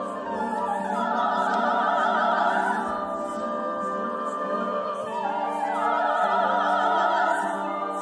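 Choir singing slow sustained chords, with a high part that has wide vibrato swelling up twice, about a second in and again past the middle.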